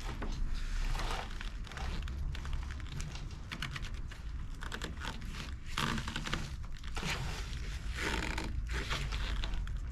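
Irregular rustling, crinkling and light knocks of things being handled and moved, over a low steady rumble.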